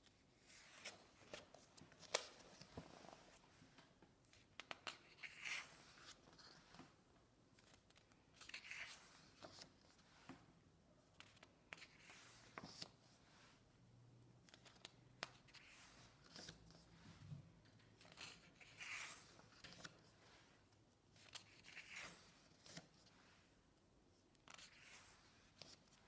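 Pages of a paperback colouring book being turned one after another and pressed flat by hand: soft paper swishes and rustles every few seconds, with scattered sharp clicks, the loudest about two seconds in.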